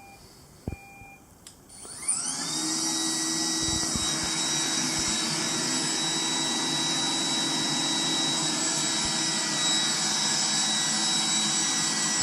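Roomba 980 robot vacuum starting a cleaning run. A short electronic beep is followed about two seconds in by the vacuum motor spinning up with a rising whine, and then the motor runs steadily with a high whine.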